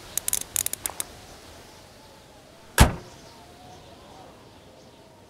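A quick run of sharp clicks and taps in the first second, then a car slamming shut with one loud thud about three seconds in.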